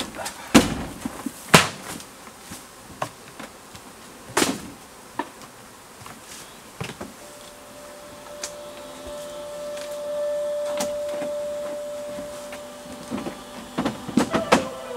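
Honeybees buzzing around opened hives, one flying close by with a steady hum through the middle for several seconds, among sharp knocks of wooden hive boxes being lifted and set down.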